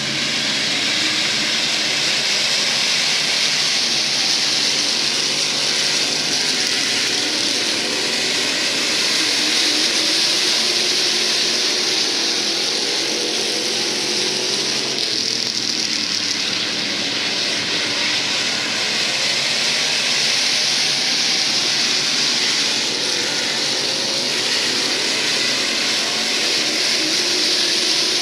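A field of IMCA SportMod race cars running at speed on a dirt oval, their V8 engines making a steady, loud, continuous racket of overlapping engine noise.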